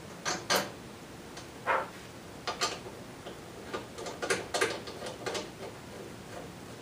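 Red battery cable being fastened by hand onto a power inverter's positive input terminal: a run of short, irregular clicks and taps from the cable end and terminal fittings. There are two sharp clicks at the start, one about a second later, then a quicker cluster that dies away past the middle.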